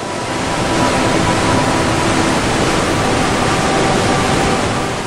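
Steady, loud rush of a waterfall in an aquarium exhibit, water pouring and splashing without a break.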